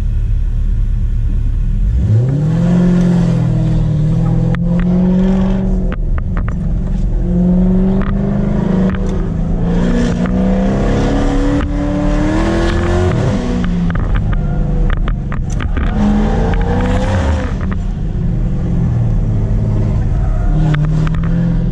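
Car engine accelerating hard about two seconds in, then speeding up and backing off again and again, its pitch rising and falling, with scattered sharp clicks.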